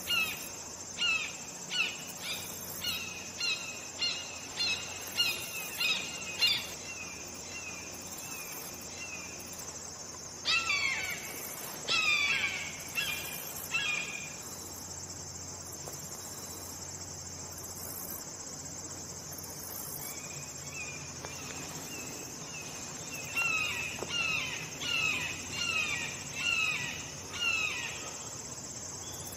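Red-shouldered hawk calling in three series of repeated, downward-slurred cries, about two a second, the middle series the loudest. A steady high drone of insects runs underneath.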